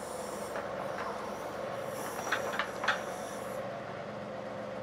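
John Deere 2038R compact tractor's diesel engine running steadily as it works its backhoe, with a high hiss that stops about three and a half seconds in. Two sharp knocks come about two and a half and three seconds in.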